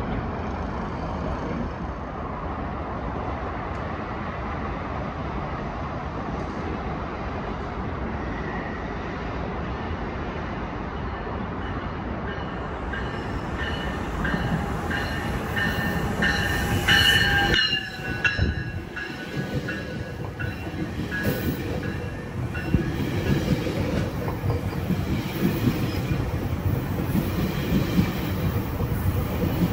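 GO Transit commuter train moving through the station: a steady rumble, then a high whining tone for a few seconds about halfway. After that comes a rhythmic clatter of wheels over the rails that grows louder toward the end.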